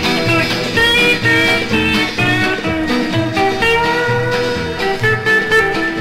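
Instrumental break in a 1954 country song: a guitar picks out the melody over a steady bass and rhythm backing.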